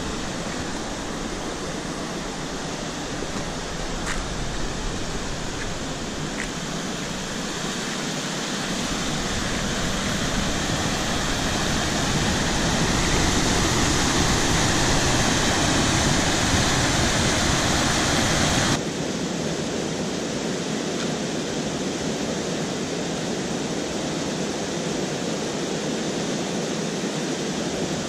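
Rushing white water of a small waterfall and rapids on a rocky river, a steady noise without pitch. It grows louder through the middle, then drops abruptly about two-thirds of the way in and stays steady at the lower level.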